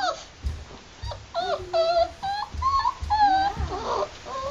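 Puppy whining in a quick string of short, high-pitched cries, with a few soft low thumps.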